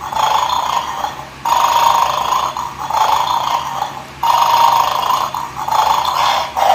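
Battery-powered toy dog from the Bad Dog game sounding a repeated electronic noise through its small speaker, in stretches of about a second and a half with short breaks between them.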